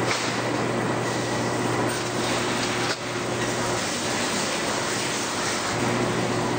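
Steady factory machine noise: an even, dense hiss over a low hum, with a brief dip about three seconds in. The hum drops out for about two seconds shortly after.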